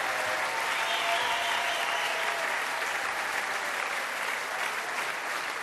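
A large hall audience applauding steadily, a dense wash of many hands clapping that eases off slightly toward the end.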